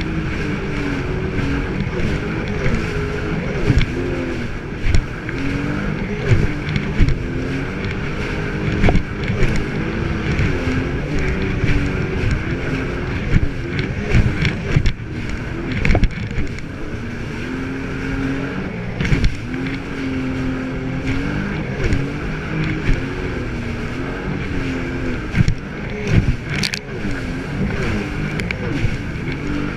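Personal watercraft engine running at speed, its pitch rising and falling as the throttle changes, with sharp thumps now and then as the hull hits the waves.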